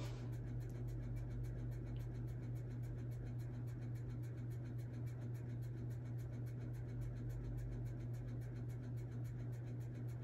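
Steady low hum under faint scratchy rubbing of a makeup brush working eyeshadow onto the eyelid.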